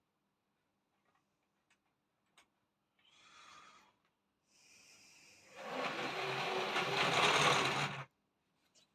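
Model Blue Pullman power car's electric motor whirring as it runs along the model railway track, starting about five and a half seconds in and cutting off suddenly near the end; it does not run well on Series 3 track.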